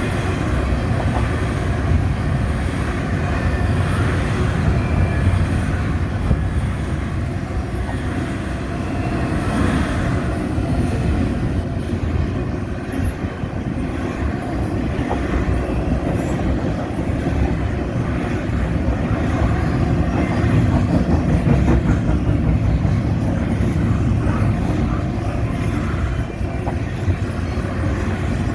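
Intermodal freight train rolling past, a steady heavy rumble of wheels on rails with occasional faint clicks.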